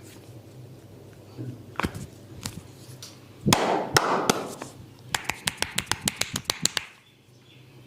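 Barber's hands tapping during a head and shoulder massage: a few single slaps, a louder rubbing noise about three and a half seconds in, then a quick even run of taps, about nine a second, for under two seconds. A low steady hum runs underneath.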